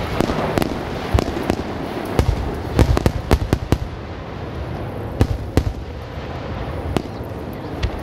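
Fireworks going off in a rapid, irregular volley of sharp bangs and crackles, thickest in the first half, over a steady low rumble.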